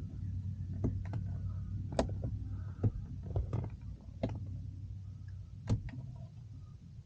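Scattered sharp plastic clicks and taps as the rear-view mirror's wiring plug and trim are handled and pried at, over a low steady hum in the truck cab.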